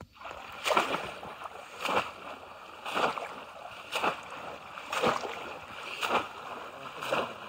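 Conical bamboo polo fish traps being plunged down into shallow pond water again and again, a splashy slap of water about once a second.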